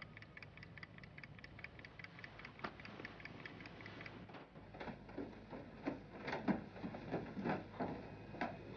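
Bedside clock ticking quickly and evenly, about four ticks a second. From about five seconds in, footsteps on a wooden staircase take over as a series of irregular, heavier thuds.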